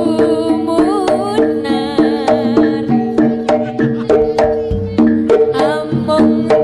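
Javanese jaranan music played live: fast hand-drum strokes on kendang over ringing gamelan metallophone tones, with a woman singing a wavering vocal line over it.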